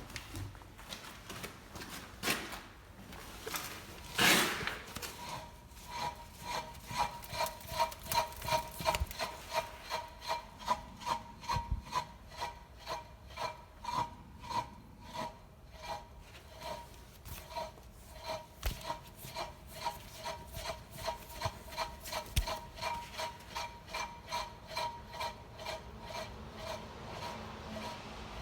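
Two knocks in the first few seconds, then a wheel turning with a rhythmic rubbing squeak, about two a second, repeated steadily; a noise of the kind listened for when checking for a bad wheel bearing.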